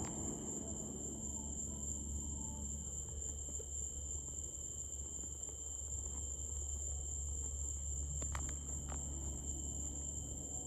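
Crickets trilling steadily, a continuous high-pitched chirr with a lower second tone, over a low steady rumble. Two faint sharp pops come a little after eight seconds in.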